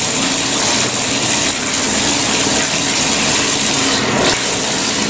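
Water running steadily from the tap into a porcelain bathtub, a constant splashing rush.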